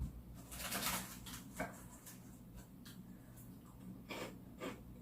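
Snack packets being handled and moved about: a burst of wrapper crinkling about a second in, then a few light taps and crinkles as packages are set down.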